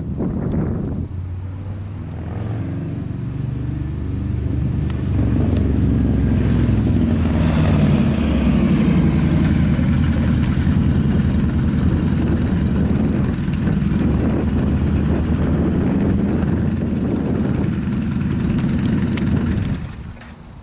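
Jet noise from an Airbus A340-313's four CFM56-5C turbofan engines as the airliner climbs past. The low, heavy sound swells over the first few seconds, holds steady, and drops away sharply near the end.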